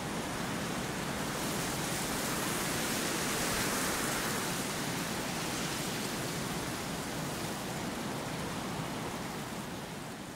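Wind blowing as a steady rushing noise. It swells in a gust about four seconds in and eases off near the end.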